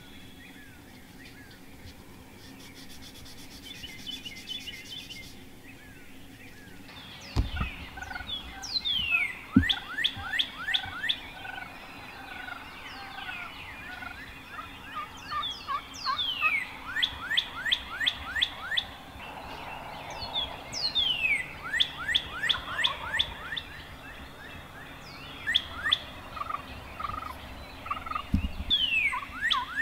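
Wild turkey gobbling repeatedly, in several rolling rattling bouts that begin about a quarter of the way in, with other birds chirping around it. There are a couple of dull thumps.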